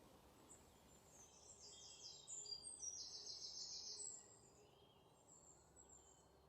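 Faint birdsong: high-pitched chirps and quick trills from several birds, busiest in the first few seconds and thinning out after about four seconds in.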